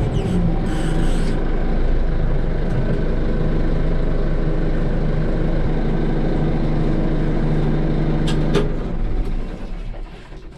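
Compact utility tractor's diesel engine running steadily, heard from inside the closed cab. A couple of clicks sound about eight and a half seconds in, and then the engine sound falls away as the tractor is shut down.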